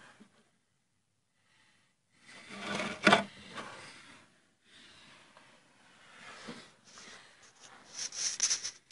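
Rubbing and scraping handling noises from hands working on car bodywork, with one sharp knock about three seconds in and a hissy scrape near the end.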